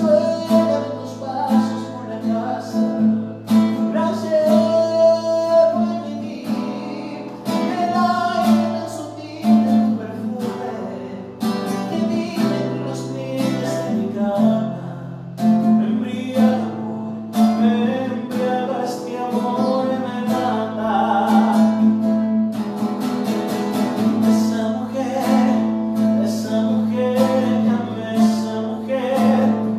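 A man singing while strumming a classical guitar.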